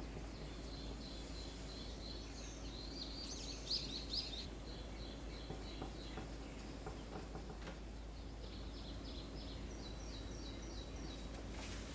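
Small birds chirping in quick runs of high, short notes, one run a few seconds in and a longer run of about ten chirps near the end, over a faint steady background hiss.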